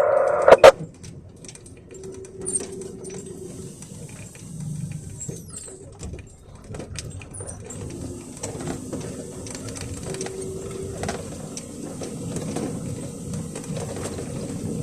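Truck cab creaking and squeaking on the move, with small rattles and a low rumble from the running truck underneath. A sharp click comes about half a second in.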